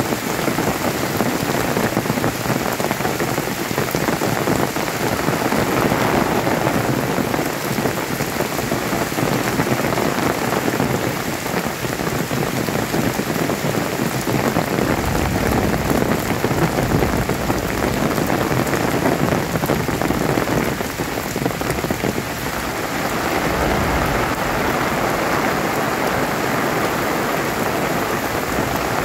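Heavy downpour: rain falling steadily as a dense, even hiss. A low rumble joins in for several seconds from about halfway through.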